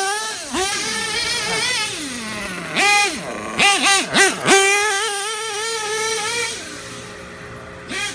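Nitro RC truggy's Dynamite .28 two-stroke glow engine revving up and down under the throttle, tuned on the rich side. The pitch falls away early on, then comes several quick revs, then a steady high whine that fades near the end as the truck moves away.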